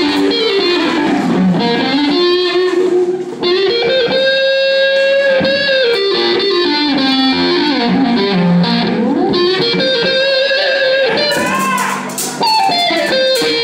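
Electric guitar played live through an amplifier, carrying a lead melody of sliding, bent and long-held single notes, with one note held for over a second about four seconds in.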